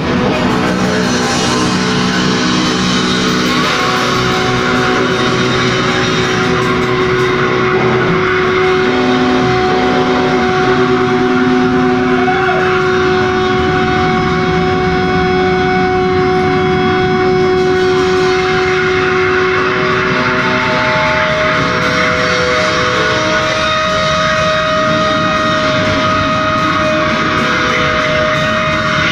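Live rock band playing loud, with electric guitar, drums and long held notes over a dense wall of sound.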